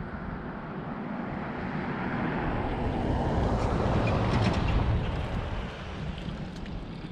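Wind gusting over the microphone: an even rush that swells about halfway through and then dies down, with a few faint ticks.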